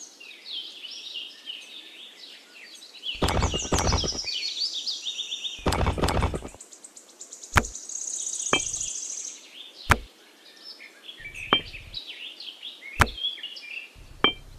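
Birds chirping and singing in short, varied phrases, with a buzzing trill about eight seconds in. A few sharp clicks and knocks cut through, some in quick clusters around three to four and six seconds in, and single ones later.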